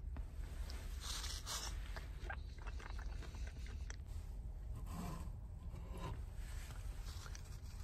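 Quiet eating sounds: chopsticks scraping and clicking against a small nonstick frying pan, with chewing. A steady low hum runs underneath.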